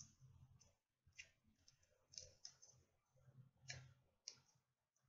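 Near silence with a few faint, scattered clicks and rustles of small handling noises, most of them between about two and four and a half seconds in.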